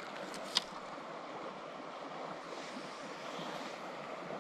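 Steady rush of a shallow river flowing over gravel and stones. A single sharp click about half a second in.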